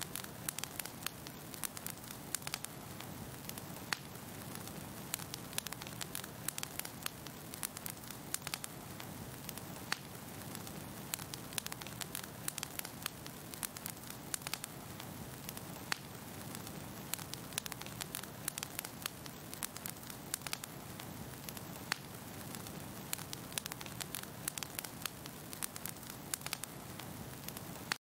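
Fire crackling: a steady hiss with frequent sharp pops and snaps.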